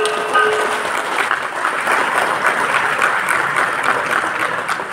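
Audience applauding, while the ringing of a struck bell fades out within the first second.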